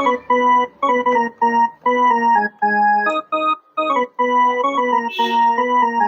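Instrumental ringtone melody played on an electronic keyboard with an organ-like tone: a single line of short, separate notes in quick phrases with brief gaps between them.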